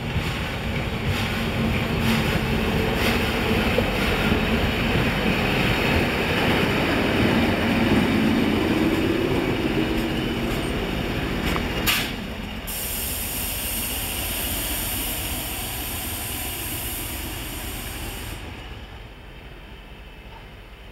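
A pair of diesel locomotives, an English Electric CP 1400-class coupled to a Sentinel CP 1150-class shunter, running together. Their engines and wheels on the rails are loud as they pass close by, then fade as they move away. A sharp click comes about 12 seconds in, followed by a high hiss for several seconds.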